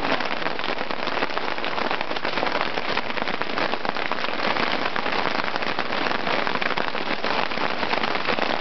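Hail pelting down hard: a dense, steady patter of countless small impacts that does not let up.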